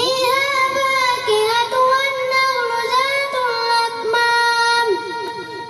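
A boy sings a naat solo into a microphone, holding one long melodic phrase with ornamented turns. The line tails off about five seconds in.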